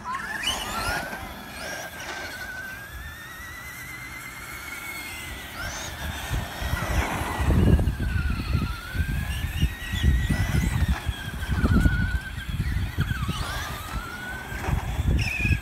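Electric RC monster trucks driving on asphalt, their motors whining in a high tone that rises and falls with the throttle. From about six seconds in there is a louder, uneven low rumble.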